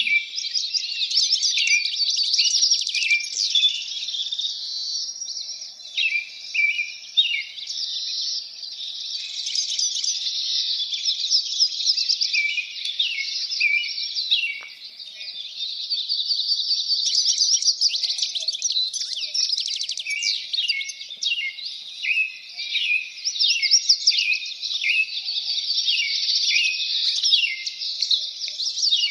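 Many small birds chirping and singing at once, a dense, unbroken chorus of quick overlapping chirps and trills.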